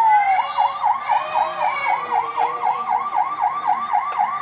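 Toy vehicle's electronic siren sounding a fast yelp, its tone sweeping up and down about four times a second, after a short falling tone at the start.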